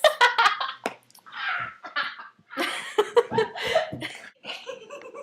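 A young woman laughing uncontrollably in short, breathy bursts, with gasps and giggles between them.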